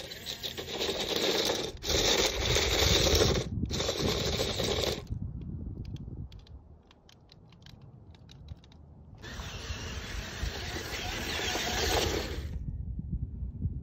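Toy remote-control car's electric drive and wheels churning and crunching over loose gravel. It runs for about five seconds with two short breaks, goes quiet for about four seconds with a few faint ticks, then drives again for about three seconds.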